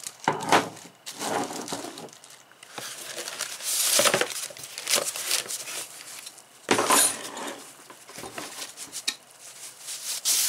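Packaging being handled: plastic wrapping crinkling and cardboard and foam rustling, with irregular knocks and clinks as items are lifted out of the box and set down. The loudest bursts come about four and seven seconds in, and again near the end as a plastic-bagged hot air gun is pulled from the box.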